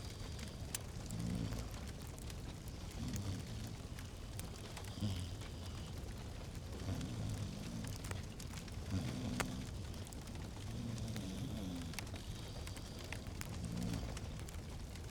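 Fireplace fire crackling, with scattered sharp pops over a low steady rumble.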